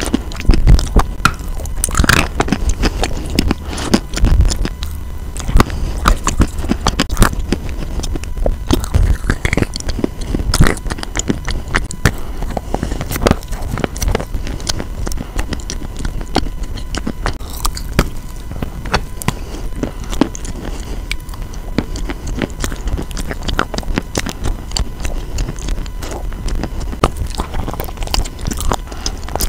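Pieces of chalk, some coated in a brown paste, bitten and chewed right against a lavalier microphone: dense, irregular crunching and crackling, with a few louder bites in the first half.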